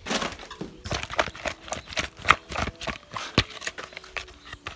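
Irregular clattering knocks and clicks, several a second, from fish being handled in a plastic bowl.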